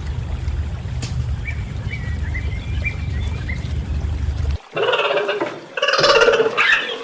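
Outdoor wind rumble with faint, scattered small bird chirps. About four and a half seconds in it cuts off suddenly and a louder animal call begins, coming in several loud pulses.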